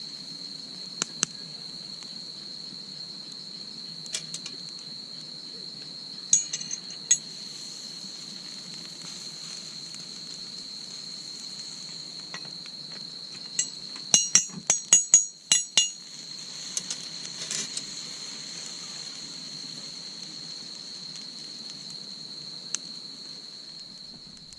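Insects trilling steadily at a high pitch, with scattered clinks and knocks of cookware and utensils being handled, and a quick run of clinks about fourteen to sixteen seconds in.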